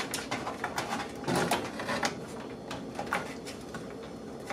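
Irregular clicks, taps and scraping of a motherboard being set into a PC case, with its cables pushed aside.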